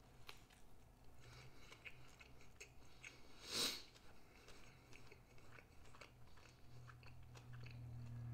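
Quiet close-up chewing with small mouth clicks, and one louder bite about three and a half seconds in. Near the end a low motorbike engine drone rises, heard through the hotel room.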